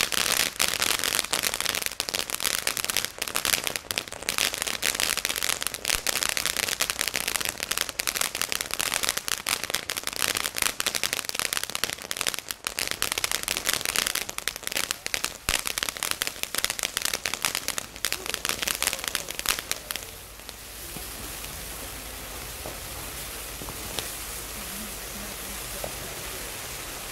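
Ground fountain firework crackling with dense, rapid pops for about twenty seconds; then the crackle stops and a steady hiss carries on.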